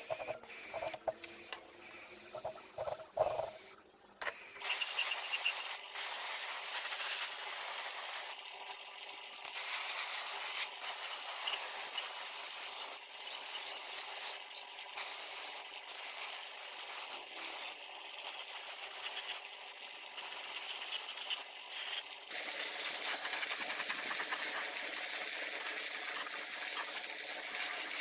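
A few light clicks and taps, then, about four seconds in, a steady hiss of pressurised spray, such as paint spraying or compressed air, that runs on with several short pauses.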